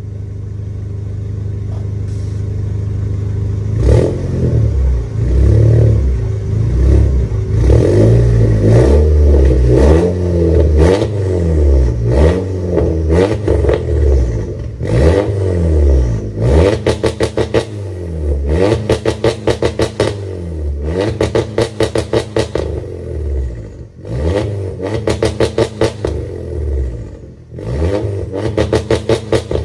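Volkswagen Scirocco's engine idling for about four seconds, then revved again and again while standing, each rev rising and falling in pitch. From about halfway on, the engine stutters rapidly at the top of the revs.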